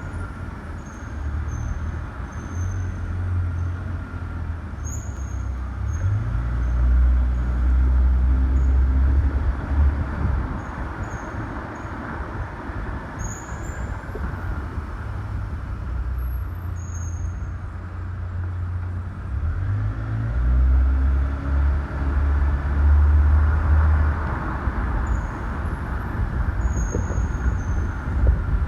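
2016 Volvo S60 Polestar rolling along with a low engine and road rumble that swells twice, while its brakes give many short, high-pitched squeals.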